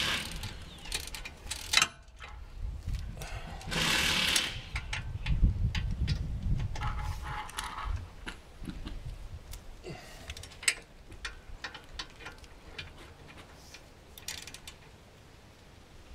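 Hand ratchet clicking in a few short runs, with scattered metal clicks and taps, as the brake caliper bolts are snugged down by hand.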